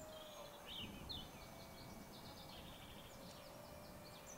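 Faint birdsong: scattered high chirps and a few rapid trills of quickly repeated notes, over a faint steady hum.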